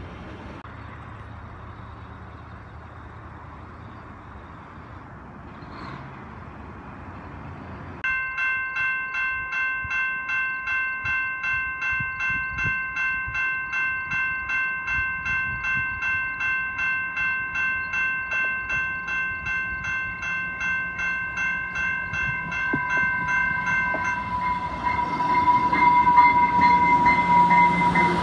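Level-crossing warning bell starting about eight seconds in and ringing steadily at about two strokes a second as an electric commuter train approaches. Near the end the train reaches the crossing and its running noise rises under the bell.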